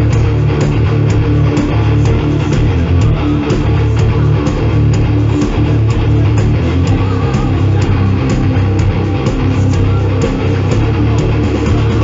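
Live heavy metal band playing loudly: guitars, bass and drums keeping a steady beat.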